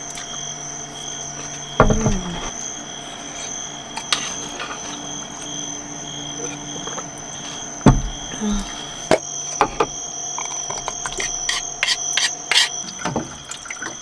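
Tableware handled on a wooden table: two sharp knocks as the bowl and a glass are set down, then a run of clicks and clatter. Near the end, water runs from a plastic water jug's spigot into a wooden bowl. A steady high-pitched whine sits underneath throughout.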